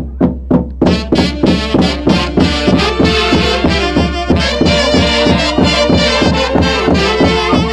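Live Huancayo dance orchestra playing a steady, fast beat, with the full band joining in about a second in.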